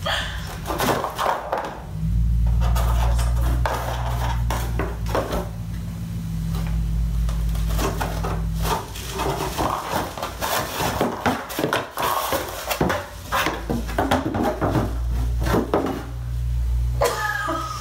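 Hands rummaging and feeling around objects inside a box: irregular knocks, clatters and rustles, over a low rumble of handling noise.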